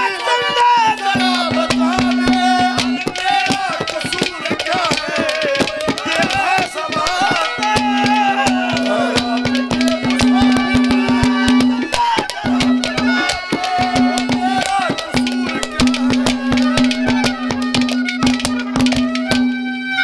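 Live Haryanvi ragni music: a held drone note under a wavering melody line, with rapid hand-drum strokes throughout. The music stops at the very end.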